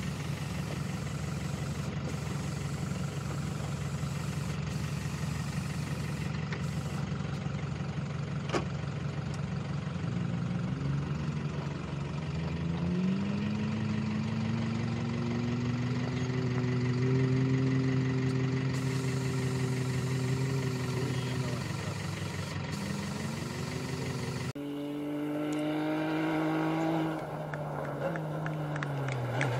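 Toyota rally-raid 4x4's engine idling steadily, then revs rising, held up for several seconds and dropping back, with a knock about 8 seconds in. About 25 seconds in, a rally car's engine accelerates hard as it approaches on gravel, its pitch rising and falling through gear changes.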